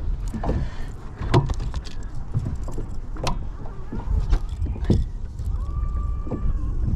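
Wind rumbling on the microphone in a small boat, with several sharp knocks and clicks.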